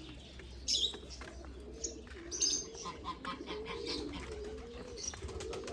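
A flock of pigeons cooing, many low wavering calls overlapping without pause, with short high chirps from other birds now and then.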